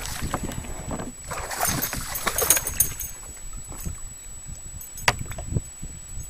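Water splashing and knocking around a kayak, loudest in a noisy stretch between about one and a half and three seconds in, with one sharp click about five seconds in.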